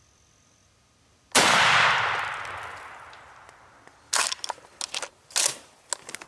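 A single turkey-shotgun blast about a second in, its report rolling away over a couple of seconds. A few seconds later come several short bursts of thrashing and flapping in the dry brush as the shot gobbler flops.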